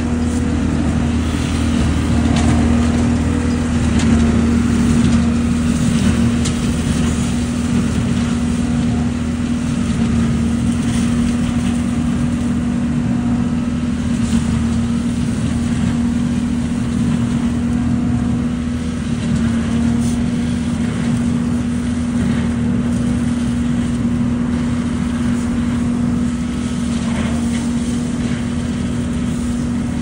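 ODB LCT650 leaf vacuum running steadily, its engine and fan giving a constant hum, while dry leaves are sucked up the intake hose with scattered crackles.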